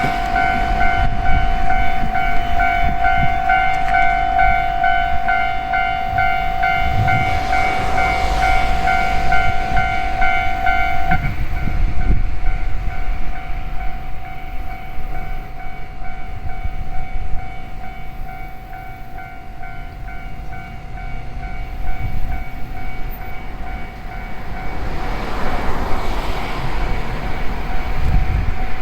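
Level crossing warning bell ringing in a steady repeated ding, over the low rumble of a train passing; the bell gets quieter about eleven seconds in.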